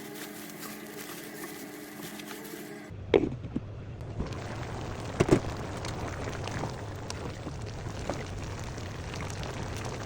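A steady motor-like hum with a few held tones, cut off suddenly about three seconds in. Then a pot of curry bubbling and sizzling, with two sharp knocks and scattered small clicks.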